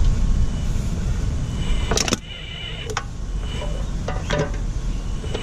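RC excavator's small electric motors whining in short spurts while the claw works, with a few sharp clanks and crunches of metal on aluminium cans. A low rumble in the first two seconds then drops away.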